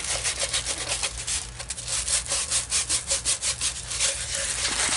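Diamond painting canvas being rolled up face-down around a white tube, giving a rapid run of rubbing, scraping strokes, several a second.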